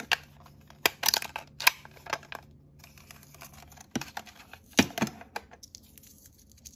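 Sharp clicks and taps of hard plastic as fingernails handle a small pink plastic L.O.L. Surprise toy capsule and work its little snap doors, in irregular bunches of several clicks.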